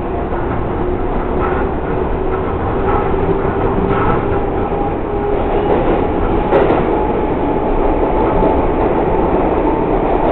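R142A subway train running, its traction motors whining in tones that climb slowly in pitch as it gathers speed, over a steady rumble of wheels on rail with an occasional clack.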